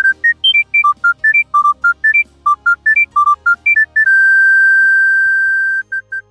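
Mobile phone ringtone: a fast tune of short, pure, whistle-like beeps, about five notes a second, climbing and falling in pitch. About four seconds in it holds one long high note, then ends on a few short beeps.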